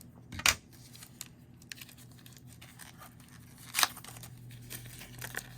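Trading-card packaging and cards being handled: crinkling and rustling with a few sharp clicks, the loudest about half a second in and again near four seconds, over a faint steady low hum.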